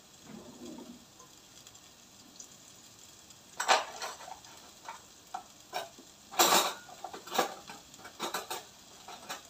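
Metal cutlery clinking and clattering in a kitchen drawer's plastic cutlery tray as it is rummaged through. It comes in a quick irregular run of sharp clinks that starts about a third of the way in.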